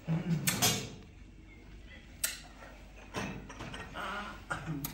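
Brief bursts of voices in a small room, with a single sharp click a little over two seconds in.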